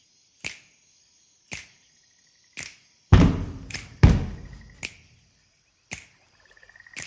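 Instrumental intro of a song: finger snaps about once a second, joined about three seconds in by two deep bass thumps. A brief buzzing tone comes in between the beats, longest near the end.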